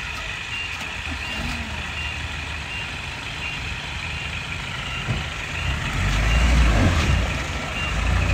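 Loaded dump truck's diesel engine running, with a reversing alarm beeping about twice a second. Some six seconds in, the engine revs up and runs louder for a couple of seconds.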